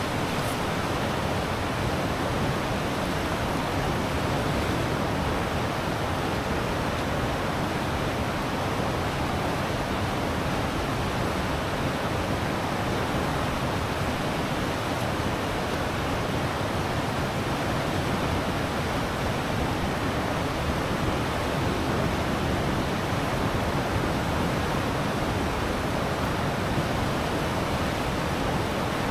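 Deschutes River rapids rushing steadily, a loud, even rush of fast water running high with spring runoff.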